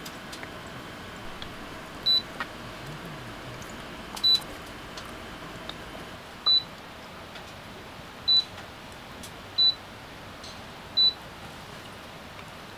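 Six short, high electronic beeps, each a single tone, spaced irregularly one to two seconds apart, like buttons being pressed on the folding camping humidifier's control panel. Beneath them is a faint steady hiss.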